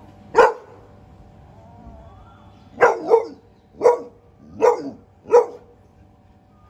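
Chocolate Labrador barking at a kitten: one sharp bark, then after a pause a run of five short barks, the first two close together.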